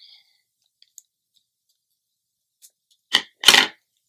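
A small plastic blind bag being torn open: after a quiet stretch, a short rip about three seconds in, then a longer crinkling tear.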